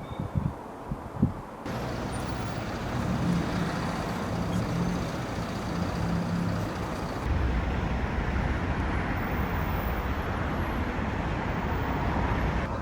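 Street traffic: road vehicles running steadily, with a low engine hum, after a few short knocks in the first second or so.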